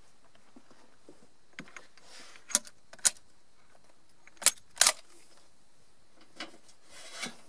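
A series of short, sharp metallic clicks and clacks, like handling of metal parts. There are about half a dozen spread over several seconds, with the loudest ones close together in the middle.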